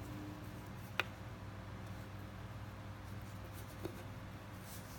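Close handling of a steel fishing hook and red line as a knot is drawn tight: faint rubbing and scratching, with one sharp click about a second in and a softer one near the end, over a steady low hum.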